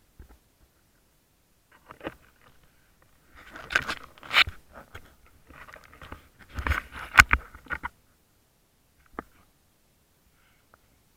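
Irregular clicks, crunches and scrapes heard underwater, coming in two clusters of bursts with a single sharp click after them.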